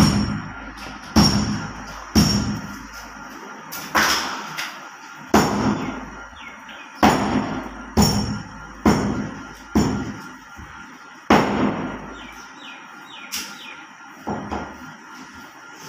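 Butcher's cleavers chopping meat and bone on wooden chopping blocks: heavy, uneven strikes about once a second, each with a short ringing tail.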